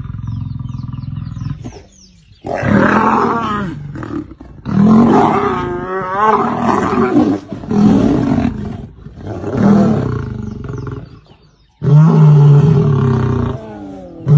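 Lions fighting: a low, steady growl, then five loud bouts of snarling and roaring separated by short pauses, with a wavering pitch in the middle bout.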